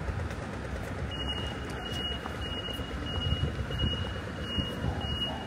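An electronic warning beeper sounding a regular series of short high beeps, about three every two seconds, starting about a second in, over the steady rumble of street traffic.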